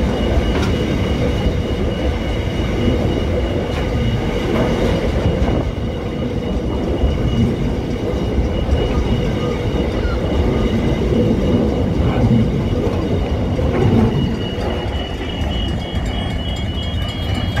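Container freight train wagons rolling past close by: a loud, steady rumble of steel wheels on the rails with scattered clacks. Near the end the last wagon goes by and the sound eases off.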